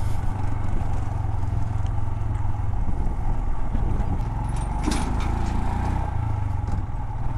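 Royal Enfield Himalayan's single-cylinder engine running steadily while the bike rides along a loose gravel road, with the rattle of the tyres and bike over the stones; a short burst of clatter about five seconds in.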